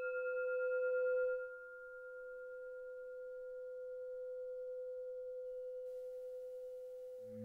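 A bell tone rings on at one steady pitch with a few higher overtones. It drops in level about a second and a half in, then holds on with a faint slow wavering.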